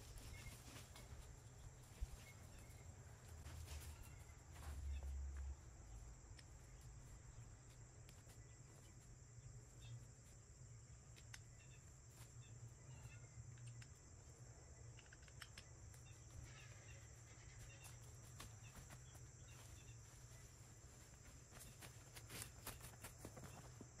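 Near silence: faint outdoor ambience with a steady high insect drone, a few faint ticks, and a brief low rumble about five seconds in.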